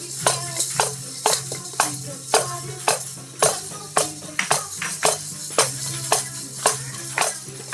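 Music with a steady shaken-percussion beat, sharp strikes about two a second over a steady low hum.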